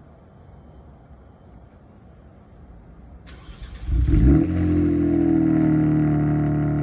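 Kia Stinger GT's twin-turbo 3.3-litre V6 starting: a faint hum, then a hiss, then the engine fires about four seconds in with a brief loud flare and settles into a steady idle.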